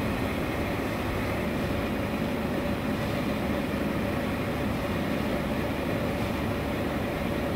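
A floating jet aerator running: a steady mechanical hum over the even rush of aerated water churning up at the surface.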